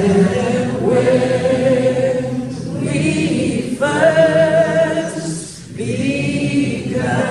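A group of voices singing together unaccompanied, in long held notes with short pauses between phrases.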